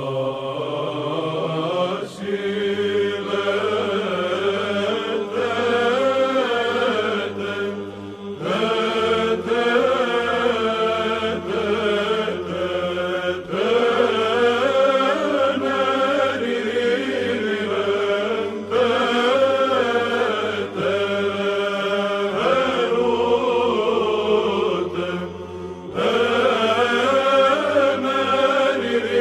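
Byzantine Orthodox chant as background music: a chanted melody in phrases a few seconds long over a steady low held drone (ison).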